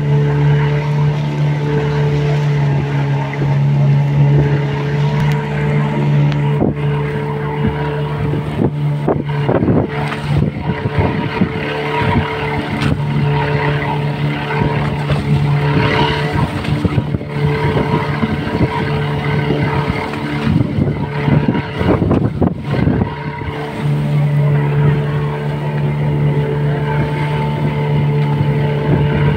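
A passenger boat's motor running at a steady cruise, a low even hum, with water rushing and splashing along the hull. Through the middle stretch the hum is partly covered by louder, irregular splashing and buffeting.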